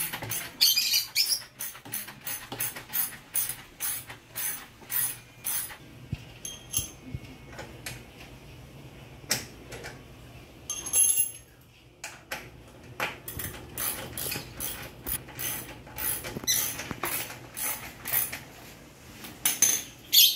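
Hand ratchet wrench clicking as a socket turns the exhaust pipe bolts on a Yamaha Aerox scooter, to loosen them. The clicks come in runs of quick strokes, two or three a second, with short pauses between runs.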